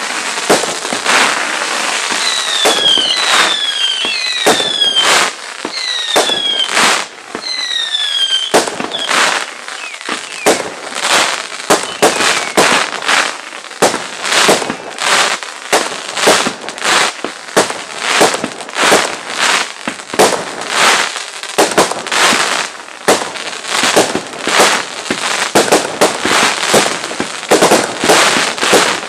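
Fireworks going off in a rapid barrage of aerial bursts, with sharp bangs about twice a second. In the first eight seconds several short falling whistles ring out between the bangs.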